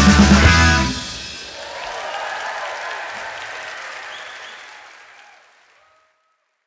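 Live rock band with electric guitars and drum kit ends the song on a few hard final hits. The music cuts off under a second in, and audience applause swells and then fades out over the next few seconds.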